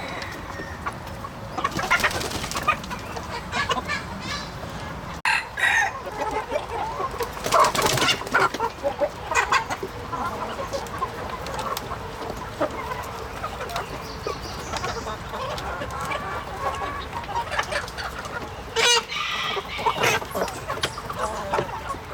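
A flock of chickens clucking and calling in short, irregular bursts, with a rooster crowing among them.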